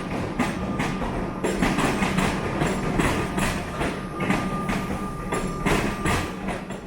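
Melbourne suburban passenger train running on the rails: a steady rumble with repeated knocks from the wheels over the track and a faint steady whine.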